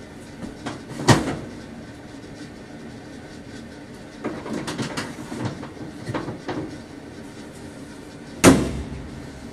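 Sheet-metal cabinet and raised top panel of a Kenmore (Frigidaire) front-load clothes dryer clunking as they are handled: a sharp knock about a second in, a run of lighter knocks and rattles in the middle, and the loudest clunk near the end.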